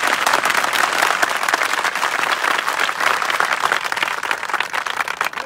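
A large crowd applauding, many hands clapping at once in a dense, loud patter.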